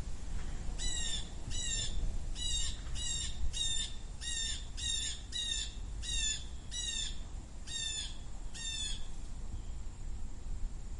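Blue jay calling: a series of about a dozen short, falling calls, roughly one every two-thirds of a second, that stop a couple of seconds before the end. A low background rumble runs underneath.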